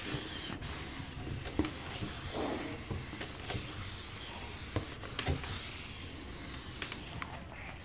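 Whiteboard duster wiping the board clean: faint rubbing with a few light taps. Behind it runs a steady, high-pitched pulsing trill.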